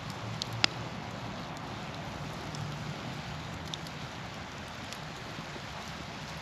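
Wood campfire burning with a steady sizzling hiss from peppers and onions cooking over it, broken by sharp pops of the burning wood: two in the first second and a fainter one a little after halfway.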